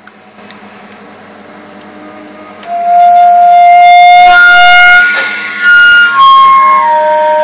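Microwave oven humming quietly as it runs, then a slow tune of long, steady held notes on a wind instrument comes in loudly, stepping between pitches and sometimes sounding two notes together.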